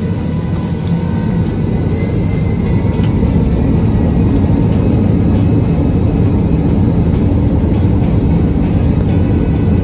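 Airliner engine and cabin noise heard from inside the passenger cabin: a loud, steady low rumble that grows louder about three seconds in.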